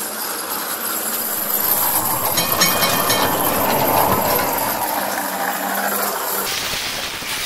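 Lisbon funicular car running on its rails: a steady rumbling hiss of wheels and track, with a brief high squeal about two and a half seconds in.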